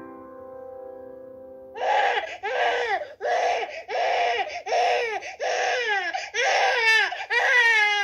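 A piano chord rings on, then about two seconds in an infant starts crying hard in a string of short wailing cries, each about half a second long.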